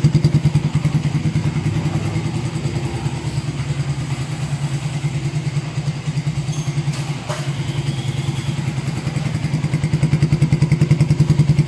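Yamaha Xabre's single-cylinder four-stroke engine idling through an aftermarket Suzuki Satria FU muffler, giving a steady, even exhaust pulse. It gets a little louder near the end.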